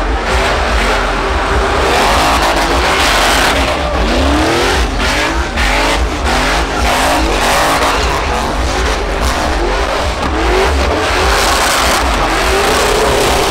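Pickup truck engine revving hard, rising in pitch again and again, as the truck spins donuts in a burnout, with its rear tires spinning and squealing on the pavement.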